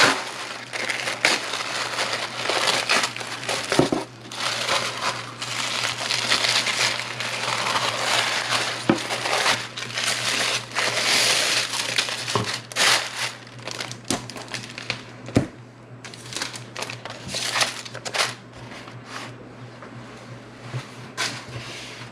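Tissue paper crinkling and rustling as it is pulled open and lifted off a wrapped package, with many sharp clicks and taps of handling. The rustling thins to occasional clicks in the last several seconds.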